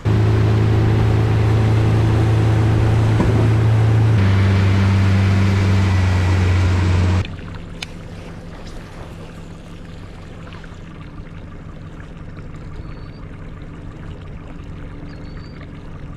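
A boat motor running loud and steady over a rushing noise. Its pitch shifts about four seconds in, and it cuts off abruptly about seven seconds in, leaving a quieter low hum.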